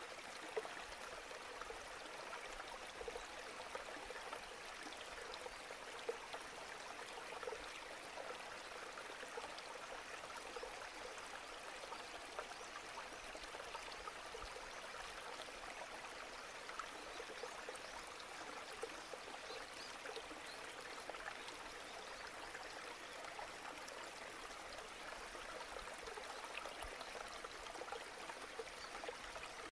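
Faint, steady trickling running water with a fine, even sparkle, unbroken throughout.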